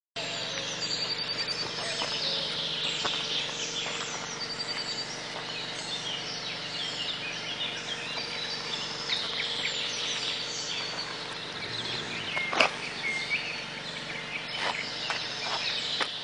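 Outdoor ambience full of small birds singing: many overlapping chirps and whistles, with a couple of rapid trills, over a faint steady hum. A single sharp click sounds about three quarters of the way through.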